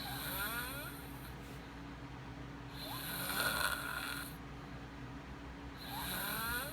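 A boy snoring: three snoring breaths about three seconds apart, the middle one loudest.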